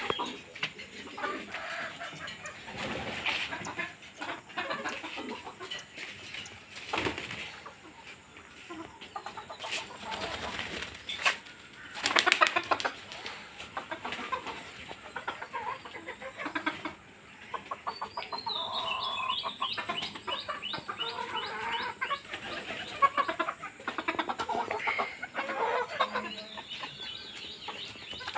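Chickens clucking on and off, with wings flapping at times and a dense burst of sound about twelve seconds in.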